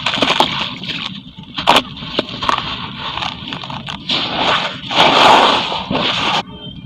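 Charcoal concrete crumbling in water: fizzing and crackling with a few sharp clicks, and a louder surge of crumbling a little after five seconds in.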